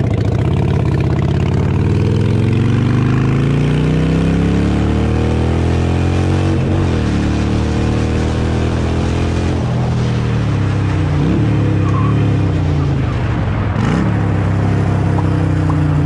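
Cruiser motorcycle engine accelerating through the gears. Its pitch climbs, drops at an upshift about six and a half seconds in and again near ten seconds, then falls as the throttle eases off and holds steady near the end.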